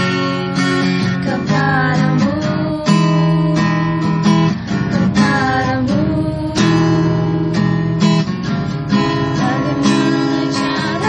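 Acoustic guitar strummed, playing a chord progression with the chords changing about every second.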